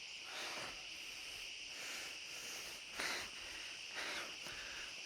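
Steady high chirring of insects, with a few soft rustles about half a second, three seconds and four seconds in.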